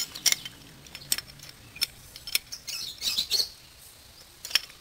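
Scattered sharp metal clicks and clinks from a wrench working on the pinion housing of a car's steering rack, with a short high chirp about three seconds in.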